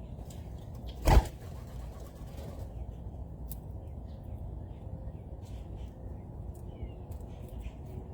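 Small birds chirping and calling in short, scattered notes over a steady low background rumble, with one loud thump about a second in.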